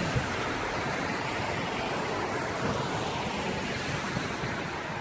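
Steady hiss of heavy rain falling on a wet street.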